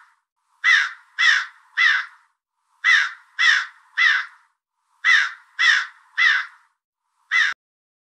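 Crow cawing in sets of three harsh caws, three sets in a row with about a second's gap between them, then a single caw that cuts off abruptly near the end.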